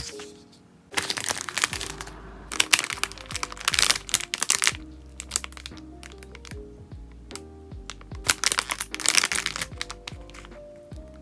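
Crinkly plastic packaging crackling in several bursts as it is handled, over background music.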